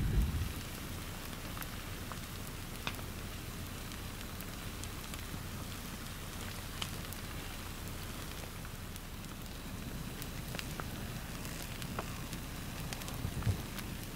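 Scattered sharp crackles and pops from an active lava flow and the vegetation it is burning, heard over a faint steady low rumble.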